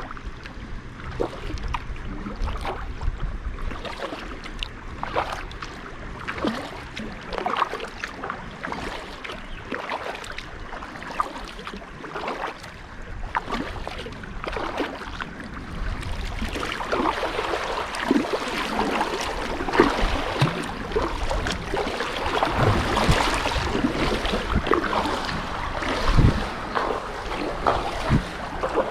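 Water splashing and slapping against a kayak hull, with paddle splashes. About halfway through the wash grows louder and choppier as boat-wake waves rock the kayak.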